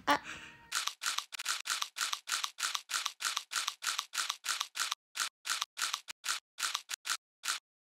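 Sound effect from an Instagram 'Donuts!' face filter: short crisp crunches repeated evenly, about three a second, with dead silence between them, then stopping abruptly.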